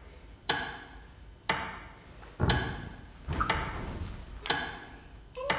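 Slow, even ticking: one sharp click every second, each with a short fading tail. A heavier low rumble sits under the ticks around the middle, and a brief pitched tone sounds near the end.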